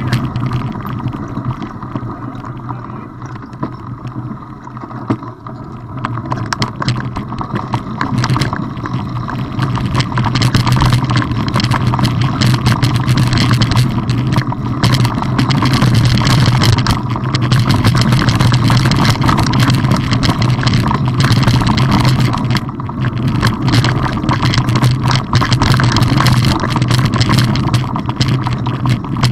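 Mountain bike rolling over a rough dirt and stone track: continuous wind rumble on the microphone, tyre noise and many small rattles and knocks from the bike, quieter for a few seconds near the start.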